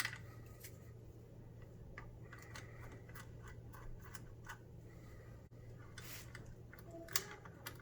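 Light scratching and small plastic clicks of hands working the old garbage disposal's electrical wiring loose at its connector, with one sharper click near the end, over a steady low hum.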